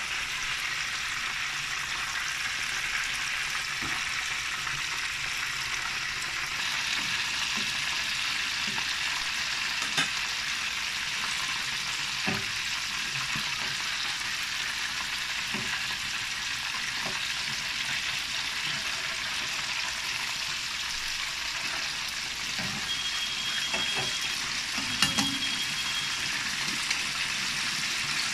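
Whole chicken deep-frying in hot oil in a frying pan: a steady bubbling sizzle, with a few soft knocks now and then.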